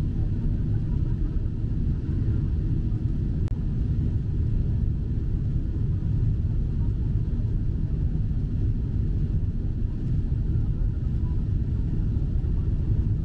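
Steady low rumble of a Boeing 747-8 in flight, heard inside the cabin: GEnx-2B engine noise and airflow over the fuselage.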